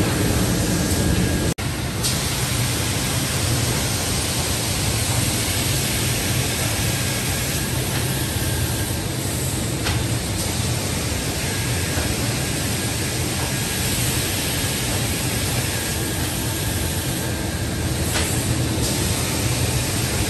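Steady, loud noise of fiber cement board production-line machinery running: an even hiss with a low hum beneath. It drops out for an instant about a second and a half in.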